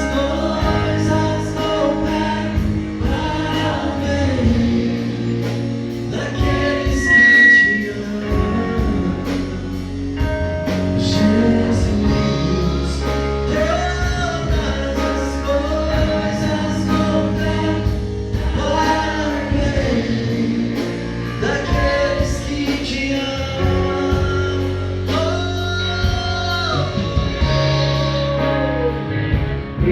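Church band playing a gospel song with a singer carrying the melody over bass and percussion.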